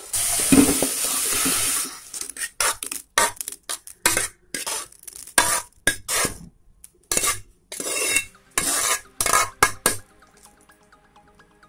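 Cooked moong dal sliding out of a steel pressure cooker into a steel pot, with a steady hiss for about two seconds. Then a metal spoon scrapes and knocks against the steel cooker and pot in quick, irregular strokes for several seconds.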